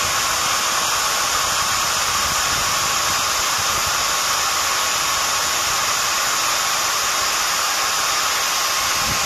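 Angle grinder fitted with a homemade paper cutting disc, running at steady speed: a constant whine over a hiss. A short low thump comes near the end.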